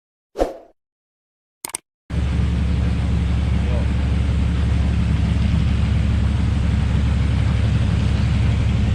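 Two brief sounds, then about two seconds in a locomotive hauling a long train uphill at full power sets in abruptly: a steady, loud, low drone with no clear beat.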